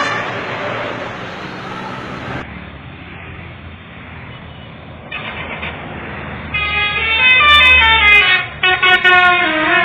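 SCH-721 vehicle horn sounding in blasts that step between several pitches, the loudest two coming in the second half, one after the other with a short break between them. Before them there is a few seconds of steady hiss and low rumble.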